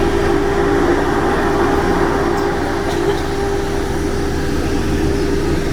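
Steady airliner cabin noise on the ground: the ventilation and air-conditioning hum, with a steady whine that stops near the end.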